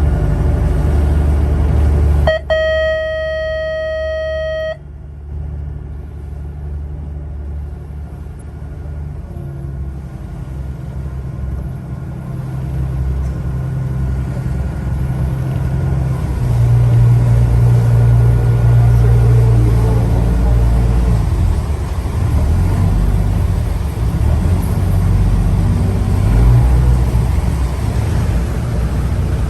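Engine rumbling steadily, with one held horn-like tone lasting about two and a half seconds, starting about two seconds in.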